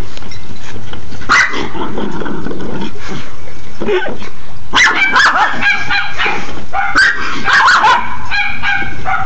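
Schnauzer barking and yipping excitedly at a lawnmower: a short bark about a second in, then a quick string of barks and yips through the second half.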